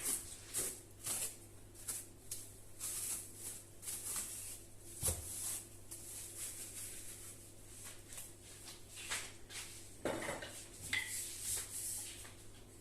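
Kitchen handling sounds: a string of light clinks, taps and scrapes of dishes and utensils, with a duller knock about five seconds in and a busier cluster of clatter near the end.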